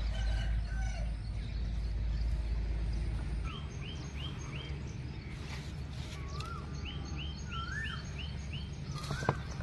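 Songbird calling: two runs of quick, high, repeated chirps, about four and then about six, with lower warbling notes between them. A low rumble underneath drops away about three seconds in.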